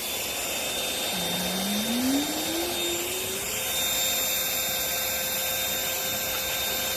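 Baseus A1 portable vacuum cleaner running: a steady motor whine over rushing air, with a lower tone that slides up in pitch about a second in.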